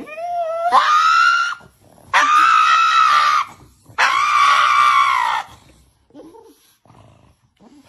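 Pug screaming: three long, high-pitched wailing cries of about a second and a half each, the first rising in pitch as it starts, the next two held fairly steady, then only faint short sounds near the end.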